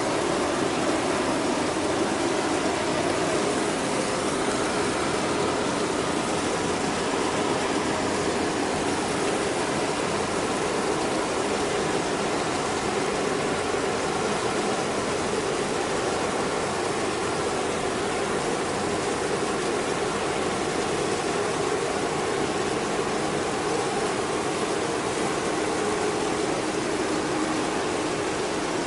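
Steady, unbroken engine drone from a ship moving close by on the water, under a constant rushing hiss of water and air.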